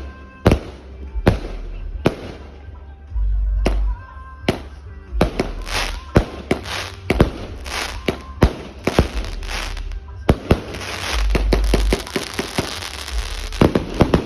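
A 49-shot consumer firework cake firing: a rapid, uneven run of sharp bangs, quickening about a third of the way in, with a stretch of dense crackle near the end.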